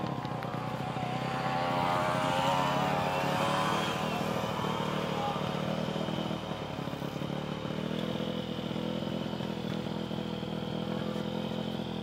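Several small dirt-bike engines running. One revs up and grows louder about two to four seconds in as it passes, then the engines settle back to steady running.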